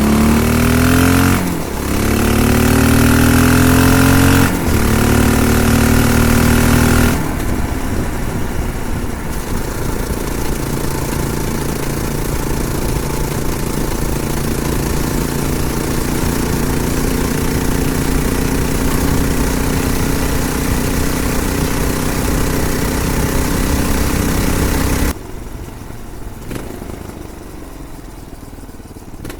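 Honda XR650L's single-cylinder engine through its stock exhaust, accelerating hard with its pitch climbing and dropping back twice as it shifts up in the first seven seconds. It then cruises steadily and fairly quietly under wind noise on the microphone, and drops off sharply near the end.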